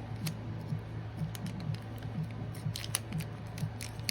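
Foil wrapper of a Pokémon TCG booster pack crinkling and crackling in scattered sharp bits as it is opened, over faint background music with a steady beat.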